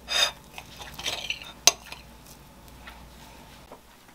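Kitchen knife cutting a hotteok on a ceramic plate: short scrapes of the blade through the pancake and against the plate at the start and again about a second in, with one sharp clink of metal on the plate shortly after.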